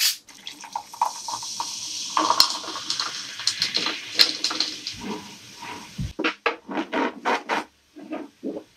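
A drink is poured from a plastic bottle into a tall glass of ice: a steady hissing pour for about five seconds, with a few sharp clinks of ice against the glass. Then come several short knocks and rubbing sounds as the bottle and gloved hands are handled.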